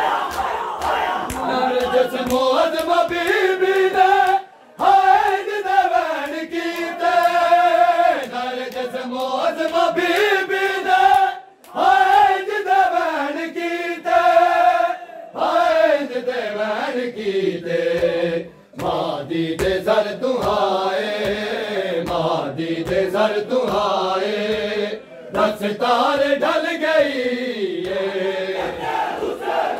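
A group of men chanting a noha, a Shia lament, in unison, pausing briefly between lines about every seven seconds. Under the singing comes a steady patter of hands beating chests (matam).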